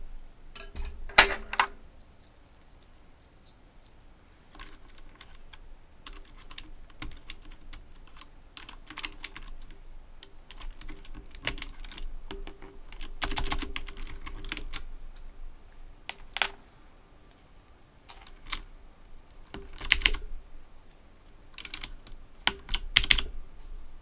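Typing on an Owltech OWL-KB109BM II mechanical keyboard with clicky Cherry MX Blue switches: quick runs of keystrokes in bursts with short pauses between them.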